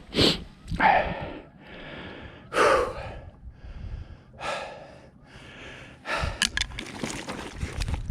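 A man breathing hard after exertion: a series of heavy breaths and gasps a second or two apart, then a few sharp clicks near the end.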